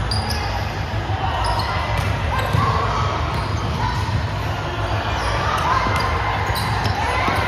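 Indoor volleyball game: the ball is struck and bounces on the court, with players' voices calling out in a large hall.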